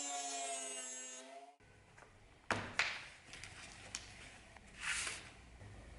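Small electric rotary tool with a thin cut-off disc whining as it cuts a brass fitting, its pitch sagging a little, then stopping abruptly about a second and a half in. A few sharp metallic clinks follow, then a short rustle, as steel needle files are handled in a leather tool roll.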